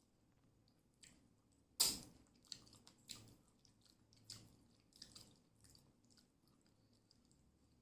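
Close-miked chewing and wet mouth sounds of someone eating, with one loud crunchy bite about two seconds in, followed by softer clicks and smacks.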